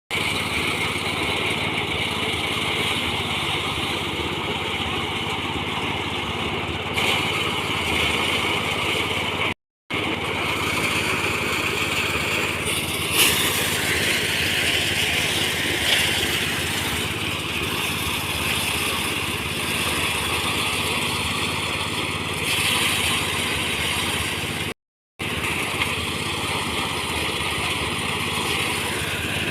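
Small engine of a mini rice thresher running steadily, a continuous motor drone with some rise in its higher tones around the middle. The sound drops out completely twice for a moment.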